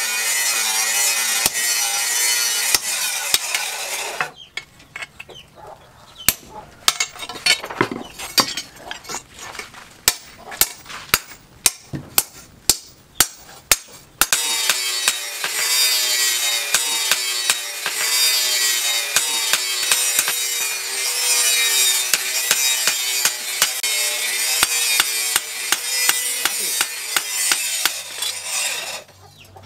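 A file rasping on a steel knife blank cut from an old chainsaw. About four seconds in it stops and a run of sharp hammer blows on the steel on the anvil follows, about two a second. About ten seconds later a steady rasping starts again and runs until just before the end.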